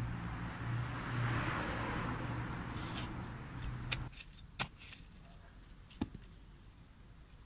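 A motor vehicle's engine running steadily, growing louder and then fading as it passes, for about four seconds; then it cuts off abruptly and a few sharp clicks and scrapes follow as a hand trowel digs into soil.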